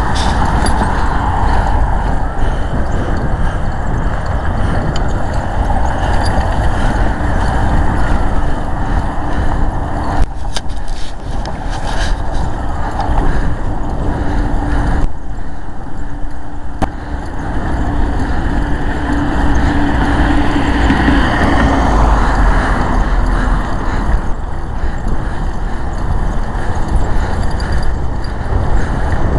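A vehicle in motion: a steady rushing noise with a heavy low rumble, a faint steady hum through the middle stretch, and a brief dip in the hiss about halfway through.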